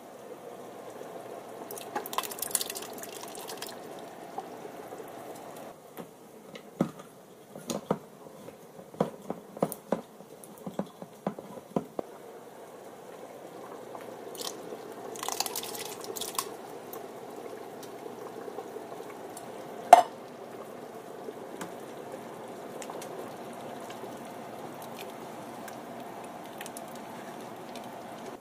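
A large pot of chili base boiling steadily, with canned kidney beans and their liquid poured in and splashing twice, a couple of seconds in and about halfway through. Between the pours come a string of light knocks and clinks, and a single sharp knock about two-thirds of the way through is the loudest sound.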